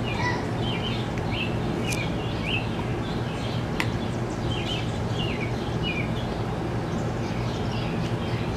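A 302 cubic inch (5.0 L) small-block Ford V8 idling steadily, with birds chirping over it again and again.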